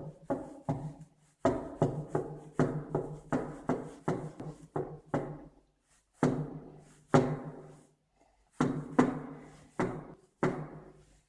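Repeated knocking on a door, in runs of quick blows about three or four a second broken by short pauses, each blow leaving a brief ringing tone.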